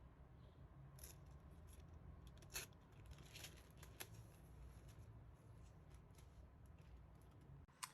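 Near silence: room tone with a few faint, short clicks and handling noises.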